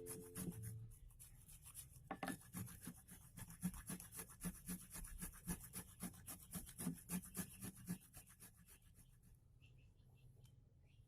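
Faint, rhythmic rubbing strokes, about three a second, starting about two seconds in and stopping about eight seconds in.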